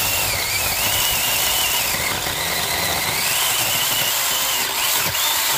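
Cordless battery mini chainsaw running and cutting through a woody shrub stem, a loud steady buzz with a high motor whine that dips in pitch and recovers several times as the chain bites into the wood.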